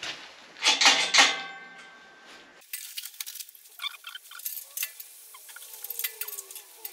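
Steel barred gate clanking shut against its metal frame about a second in, a few loud metallic strikes, followed by small clicks and rattles of its lock being worked, with faint squeaks.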